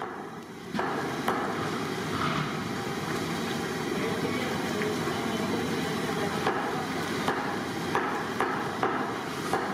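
Water poured from a large plastic jug into a big pot of nihari broth, a steady splashing pour that starts about a second in. Sharp knocks come now and then through it, more often near the end.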